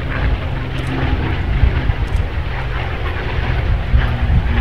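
P-51 Mustang's V-12 piston engine droning steadily as the fighter flies past.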